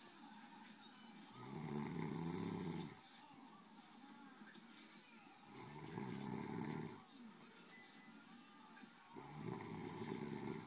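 A person snoring: three long, loud snores about four seconds apart, each lasting about a second and a half, with quieter breathing between them.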